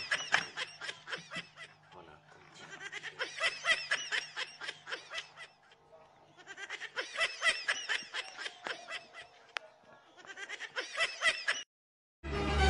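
High-pitched giggling laughter, rapid repeated syllables, in four bursts of a few seconds each. It cuts off near the end, and after a short gap a loud, sudden burst of noise starts.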